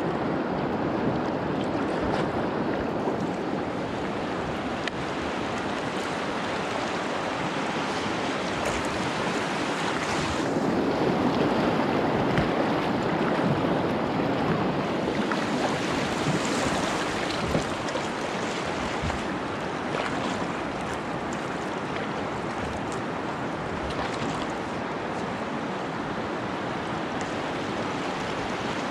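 River rapids rushing: a steady wash of whitewater, a little louder from about ten seconds in until about fifteen seconds in.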